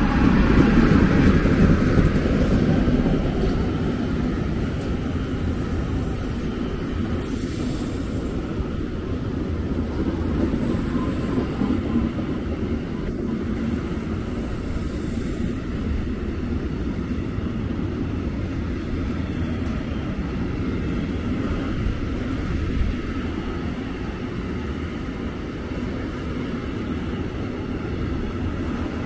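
Train passing on the line, loudest in the first few seconds, then a steady rumble of wheels on rails that carries on throughout.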